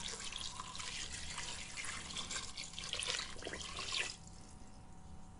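Water poured from a plastic measuring jug into a pressure cooker pot full of chopped vegetables and fish, splashing steadily, then stopping abruptly about four seconds in.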